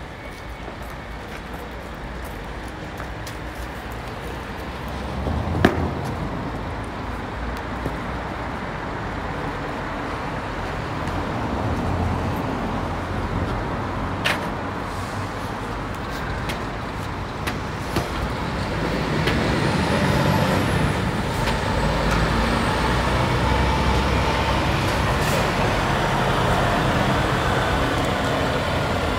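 Heavy tractor unit's diesel engine towing a low-loader trailer that carries a railway carriage, running slowly with road traffic around it and growing louder as the rig comes close, from about two-thirds of the way in. A sharp knock about six seconds in.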